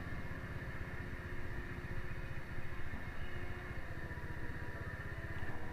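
Small Honda motorcycle engine idling steadily.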